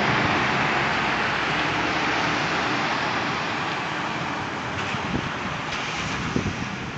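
Pickup trucks driving through a street intersection: a steady rush of tyre and engine noise that slowly fades as they pull away. A few light ticks sound in the second half.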